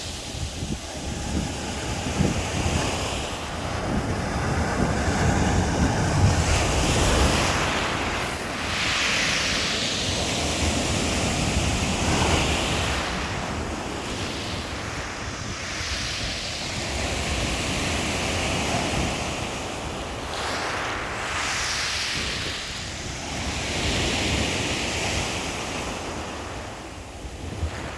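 Black Sea waves breaking and washing on the shore, the surf swelling and easing every few seconds, with wind buffeting the microphone.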